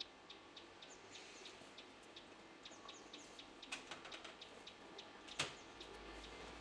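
Faint outdoor bird chirping, many short high calls repeating throughout, with one sharp knock about five seconds in.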